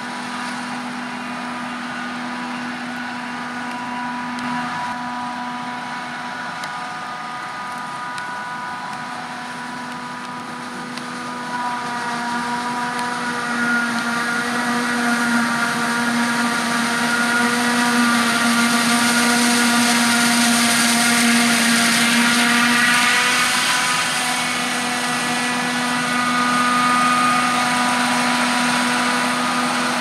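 Claas Jaguar 970 self-propelled forage harvester chopping maize alongside a Fendt tractor and trailer: a steady machine drone with several high whining tones and a hiss over it. It gets louder from about twelve seconds in.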